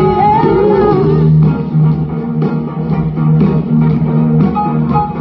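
Live blues-rock band playing: an electric guitar line that bends in pitch over the first second, then a steady groove of bass and regular drum hits, heard from the audience.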